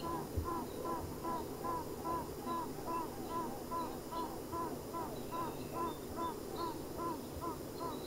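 Honey bee queen piping: a steady train of short, arched toots, about two and a half a second, over the low hum of the crowded colony. Piping queens mean the colony is about to swarm, too late to split it.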